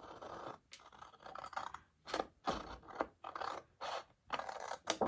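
Scissors cutting through patterned paper in a series of short snips with brief pauses between them.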